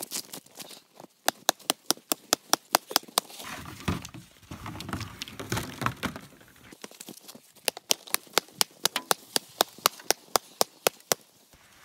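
A rotten log being broken apart by hand and underfoot, with a stretch of crunching and cracking wood in the middle. Before and after it come runs of sharp, evenly spaced clicks, several a second, which are the loudest sound.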